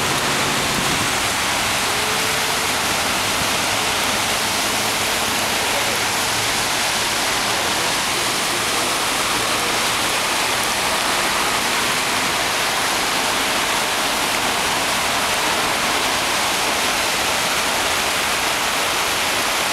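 Heavy rain and rushing floodwater making a steady, even hiss.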